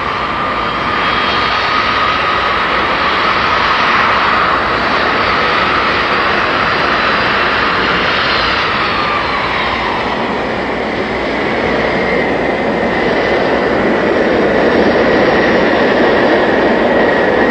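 Jet engines of the first Boeing 747-100, four Pratt & Whitney JT9D turbofans, running as the airliner taxis: a steady whine over a broad rush, the pitch shifting about halfway through, a little louder near the end.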